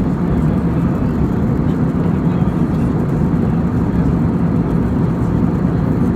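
Steady low drone of engine and airflow noise inside a passenger aircraft cabin, with a faint steady hum underneath.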